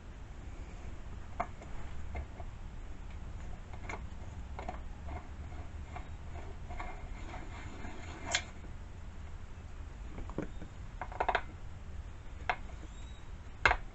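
Light metal clicks and clinks of chainsaw parts being handled while a new 3/8-inch-pitch sprocket is fitted, over a low steady hum. The clicks are scattered, with a sharper clink about eight seconds in and another near the end.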